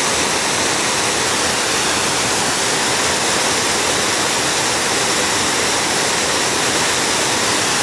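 Waterfall on a mountain creek: a steady, even rush of falling water.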